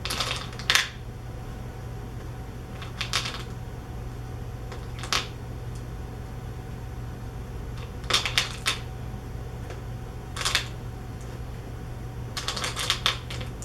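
Scattered light clicks and rattles, a few at a time with pauses of a second or two and a quick run of them near the end, as candy robin's eggs are handled and set onto the bird's nest treats.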